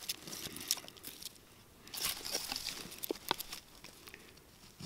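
Faint rustling and crunching with scattered light knocks and clicks: sticks and a piece of wood being handled.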